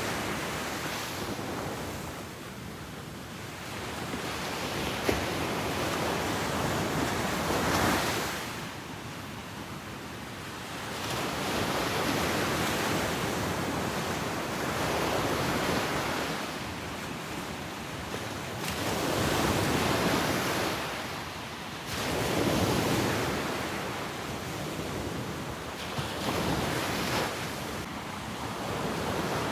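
Ocean surf: waves breaking and washing up the beach, the rush swelling and falling back every few seconds, with some wind on the microphone.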